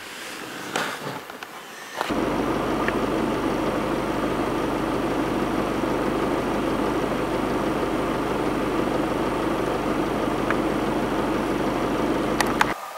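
Vehicle engine running steadily with an even low hum, starting abruptly about two seconds in and cutting off just before the end.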